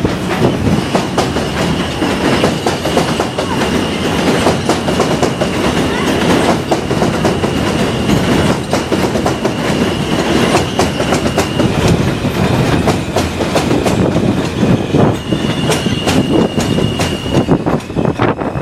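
Elevated subway train running on the overhead track, its wheels clattering over the rail joints with a thin, high wheel squeal held through much of it.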